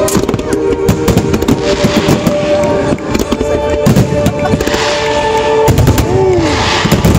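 Aerial fireworks display: dense, rapid bangs and crackling of shells bursting one over another.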